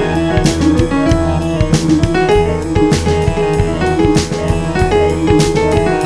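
Background music: piano and keyboard over a steady drum beat with a bass line.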